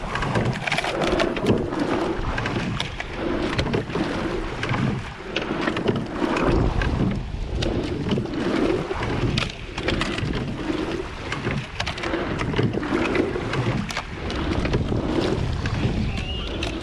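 Rowing eight under race pressure: water rushing along the hull and off the oar blades, with repeated knocks of oars and gates through each stroke. Wind buffets the microphone, heavier from about six seconds in.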